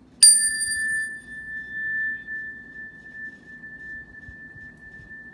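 A small metal chime or tuning fork struck once, ringing one clear high tone that fades slowly over several seconds. Its brighter overtones die away within the first second or two.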